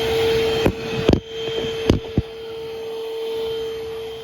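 Eureka vacuum cleaner running with a steady motor hum and whine, broken by a few sharp knocks in the first half.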